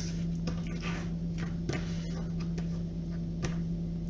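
Kitchen knife slicing raw chicken breast on a plastic cutting board, giving a few faint, irregular taps as the blade meets the board, over a steady low hum.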